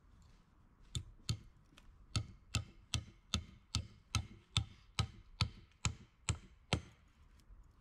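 A hand tool striking wood in a steady rhythm: two sharp blows about a second in, a short pause, then twelve more at a little over two a second, stopping near the end.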